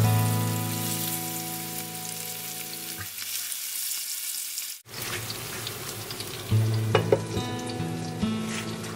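Spice-coated whole red snapper sizzling as they shallow-fry in hot oil in a pan, over background music. The sound drops out briefly just before the middle, and a few sharper clatters come in the second half as fish are handled and a lid goes on.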